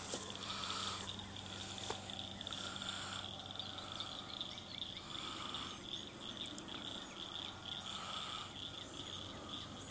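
Outdoor insect chorus: a steady, pulsing high trill, with a short lower call repeating every two to three seconds.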